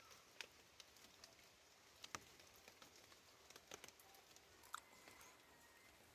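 Faint light rain: scattered, irregular taps of raindrops dripping onto leaves and surfaces over a soft hiss.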